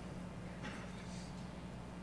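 Quiet room tone: a steady low electrical hum, with a brief faint rustle a little over half a second in.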